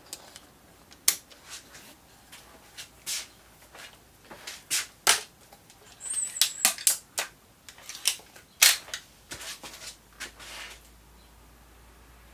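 Gamo Swarm Maxxim break-barrel air rifle being test-fired: two loud shot cracks about seven and a half seconds apart, with a run of metallic clicks and clacks between them from the barrel being broken, cocked and closed again.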